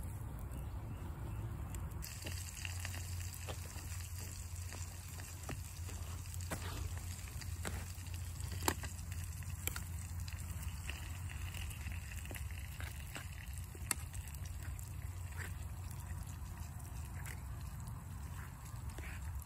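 Meatballs sizzling in a small metal frying pan over a campfire, the hiss growing stronger about two seconds in, with scattered sharp clicks over a steady low rumble.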